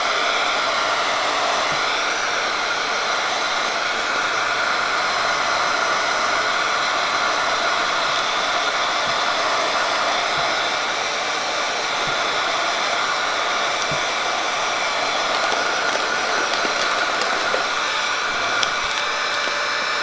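Handheld heat gun blowing hot air steadily: an even rush of air with a faint steady motor whine, as it shrinks plastic shrink wrap tight around a sublimation mug.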